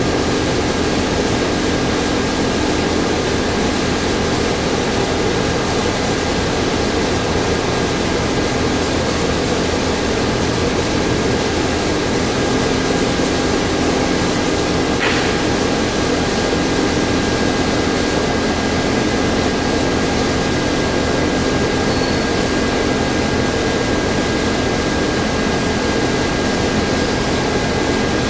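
Steady machinery hum with constant rushing air noise, and a brief faint tick about halfway through.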